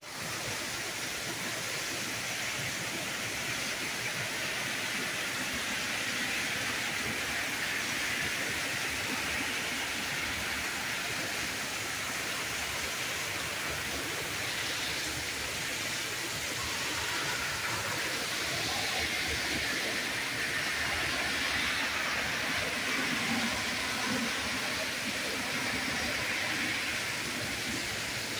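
Torrential rain pouring down steadily, an even rush of noise with no breaks.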